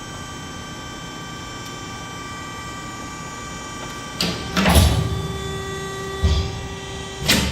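Ermaksan CNC hydraulic shear: its hydraulic pump hums steadily, then about four seconds in the machine cycles, with sharp clunks as the hold-downs and blade beam move, a steady tone under the hydraulic load, and a louder clunk near the end.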